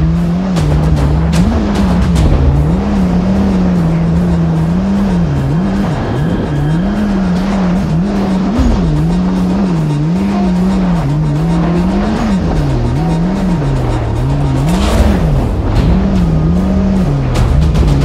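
Yamaha GP1800R SVHO jet ski's supercharged four-cylinder engine running at speed, its pitch rising and falling about once a second, over the rush of water spraying from the hull.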